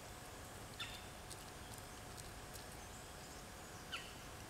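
Faint outdoor background hiss with two short chirps from a bird, each falling in pitch, about three seconds apart, and a few faint light clicks.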